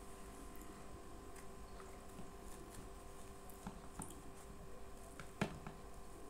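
Faint eating sounds: chewing with small wet mouth and finger clicks, then butter naan being torn by hand. One sharper click comes about five seconds in.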